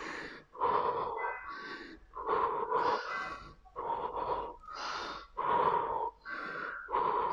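A woman breathing hard with the effort of scissor-kick crunches, a forceful breath in or out a little more than once a second in a steady rhythm.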